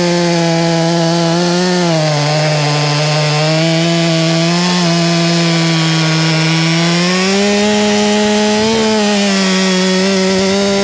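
Stihl two-stroke chainsaw at full throttle cutting through a large log, its engine note sagging as the chain bites about two seconds in and climbing higher later on.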